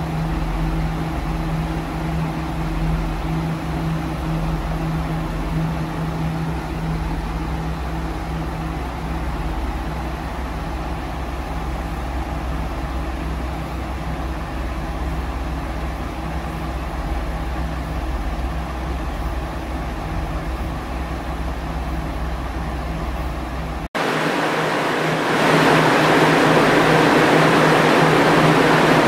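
KiHa 40-series diesel railcars idling, a steady low engine hum with a held tone. About 24 s in, right beside a railcar, a much louder steady rushing noise rises over the hum.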